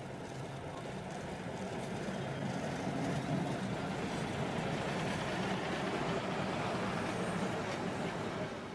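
Historic 'Modrý šíp' (Blue Arrow) railcar train running past close by. Its steady engine drone and running noise grow louder over the first few seconds, hold loud as the cars pass, and begin to fall away at the very end.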